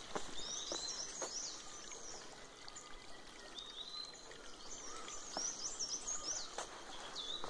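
Small forest birds chirping with quick, high notes that rise and fall, calling again and again over a faint steady hiss, with a few short soft knocks.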